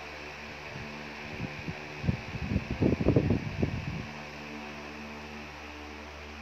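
Steady low hum with several fixed tones, like a fan or appliance running, broken by about two seconds of irregular low thumps and rumbling in the middle.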